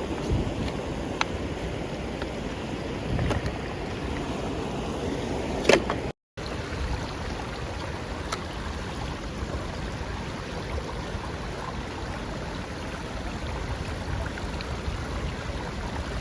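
Steady outdoor rush of wind and moving water, with a sharp click about six seconds in followed by a moment of dead silence.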